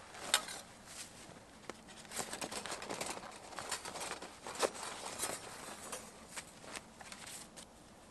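Fabric pouch rustling as thin metal plates and a paper sleeve are slid out of it, with scattered light clicks and scrapes, busiest in the middle and with two sharper clicks, one right at the start and one about four and a half seconds in.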